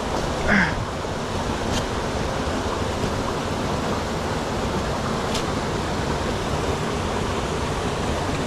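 Mountain stream water rushing steadily over rocks, a continuous even hiss, with a brief sharper sound about half a second in.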